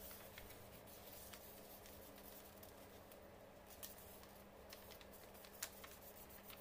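Faint rustling and crinkling of a sheet of white paper being handled and folded by hand, with scattered soft clicks and one sharper crinkle about five and a half seconds in, over a low steady hum.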